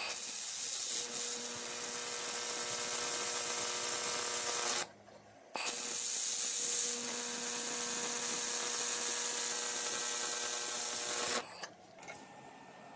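XPhotonics X1 Pro 700 W handheld fiber laser welder welding 2 mm stainless steel: a steady hiss with a faint buzzing hum. It runs twice, with a short break about five seconds in, and stops about eleven seconds in.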